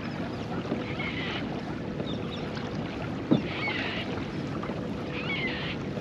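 Water lapping against a kayak's hull, with wind on the microphone and a single sharp knock about halfway through.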